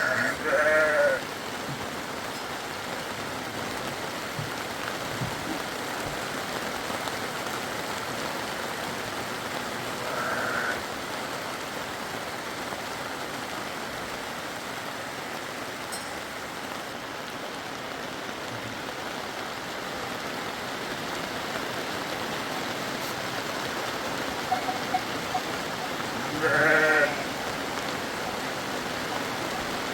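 Steady rain falling, with sheep bleating: a call right at the start, another about ten seconds in, and one more near the end.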